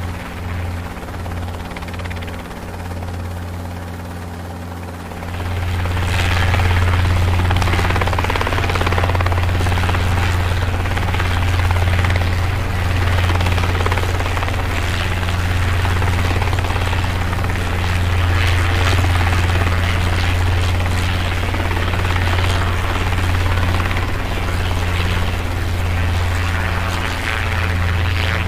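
Helicopter flying with a steady low rotor beat. About five seconds in it grows louder, with more rushing noise over the top, and then holds steady.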